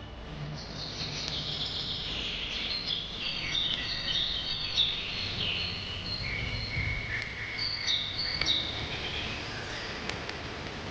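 Small birds chirping and trilling together, with many short, varied calls overlapping.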